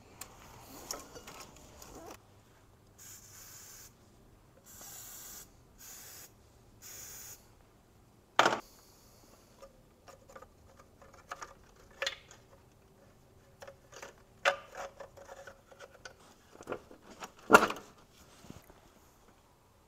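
Hands refitting rubber crankcase-ventilation hoses and plastic fittings on a BMW E46 engine: rubbing and rustling with a few short hisses a few seconds in, then several sharp clicks and knocks as parts seat, the loudest near the end.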